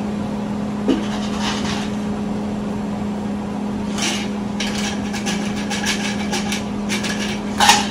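Plastic packaging crinkling and crackling as it is handled and worked open, most densely in the second half, over a steady low electrical hum. A light knock comes about a second in.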